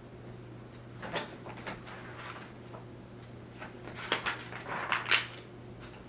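Pages of a large picture book being handled and turned: a few soft paper rustles and brushes, the strongest about four to five seconds in.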